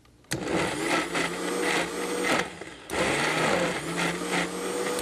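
Vitamix high-power blender motor running in two pulses, with a short stop about halfway, churning a thick frozen-banana mixture into soft serve; the motor's pitch wavers as it works through the load.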